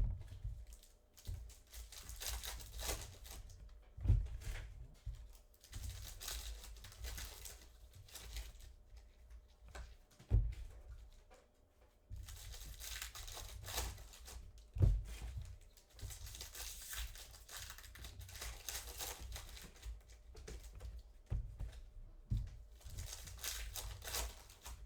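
Trading card packs and box wrap being torn open and their wrappers crinkled, in stretches of a few seconds, with several dull thumps of handling on the table.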